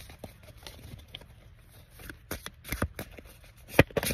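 Tarot cards being shuffled: a string of short, sharp card snaps and flicks, sparse at first, then a quick run of them in the last second and a half.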